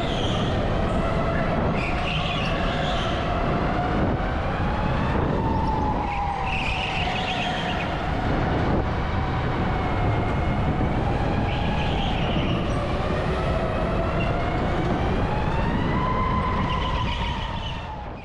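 Electric go-kart's motor whining, its pitch rising and falling as the kart speeds up and slows through the turns, over a steady rumble of track and wind noise.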